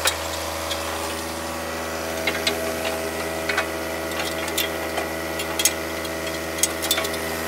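John Deere 1023E compact tractor's three-cylinder diesel idling steadily, with scattered sharp metallic clinks from tools and hitch parts as the box blade is fitted to the three-point hitch.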